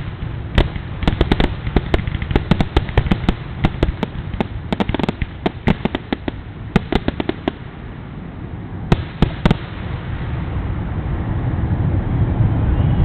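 Fireworks finale: a rapid barrage of sharp bangs and reports, closely packed for most of the first seven seconds, with a last few bangs at about nine seconds. After that a steady rushing noise builds toward the end.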